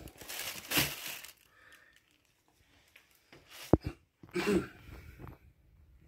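Rustling and crinkling handling noise as things are moved about, with one sharp knock a little past halfway.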